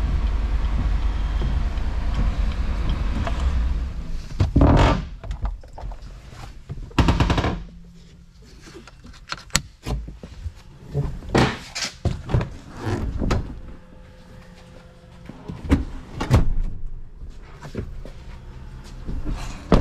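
GMC Yukon XL's 5.3L V8 running, a steady low rumble heard inside the cab, which falls away about four seconds in. After that comes a string of thunks and knocks from the truck's doors and interior being handled, the loudest about a third of the way in and again near the end.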